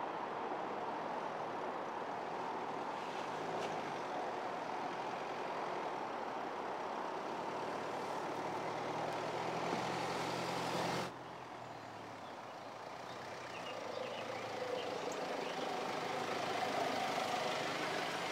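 Mercedes-Benz GLC SUV's engine running at low off-road speed over a steady outdoor wash of noise; the sound drops suddenly about eleven seconds in, then builds again as the vehicle comes closer near the end.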